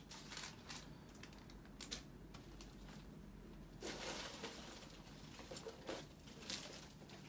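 Faint rustling and crinkling of a plastic trash bag and packaging wrappers as gloved hands dig through garbage, with scattered light clicks and a slightly louder rustle about four seconds in.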